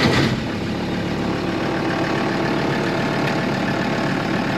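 Five-cylinder turbo-diesel engine settling into a steady idle just after starting.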